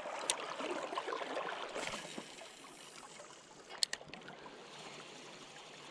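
Water sloshing and gurgling for about the first two seconds, then a quieter steady water sound. Two short sharp clicks, one just after the start and one just before four seconds in.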